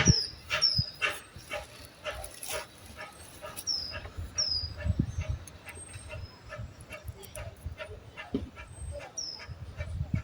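A dog barking rapidly and repeatedly, several sharp barks a second, with a few high whistling whines among them.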